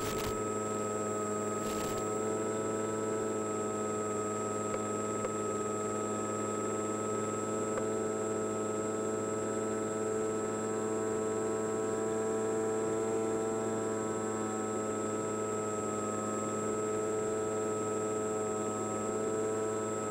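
Electric motor and propeller of an Easy Glider Pro model glider, pylon-mounted, running at steady throttle: a steady multi-tone whine that holds its pitch. Two brief crackles come in the first two seconds.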